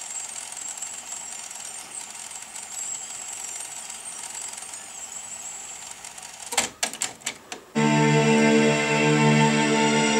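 Technics RS-T330R double cassette deck between pieces: faint tape hiss, then a cluster of sharp mechanical clicks from the transport about six and a half seconds in, and music from the tape starts about a second later.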